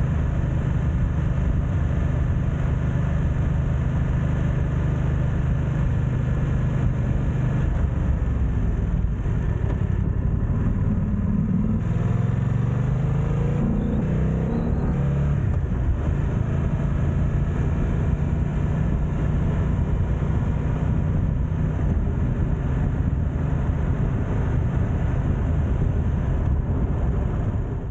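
BMW F900XR's parallel-twin engine running under way at low speed, recorded on the bike with wind noise on the microphones. Between about eight and sixteen seconds in the engine note drops and then climbs again, then holds steady.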